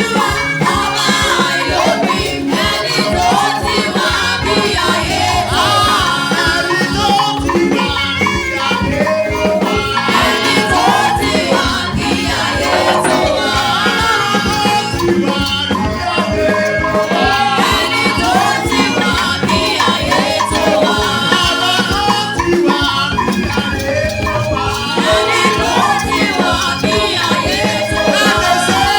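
Upbeat praise music with singing voices over steady drums and a shaker-like rattle.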